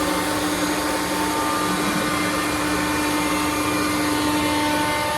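CNC router running with its vacuum hold-down table while cutting HDPE sheet: a steady machine whine over an even hiss, with no change in pace.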